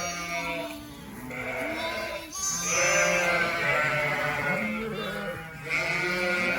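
A barnful of sheep and lambs bleating, many calls overlapping without a break, some deep and some high-pitched.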